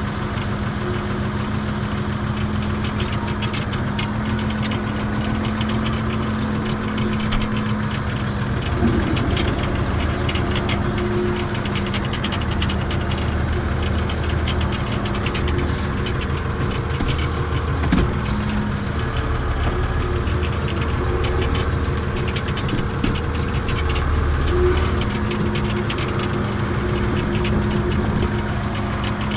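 Renault farm tractor's diesel engine running steadily, heard from inside its cab. The engine note changes about nine seconds in, with a deeper rumble taking over, and returns to its first note near the end.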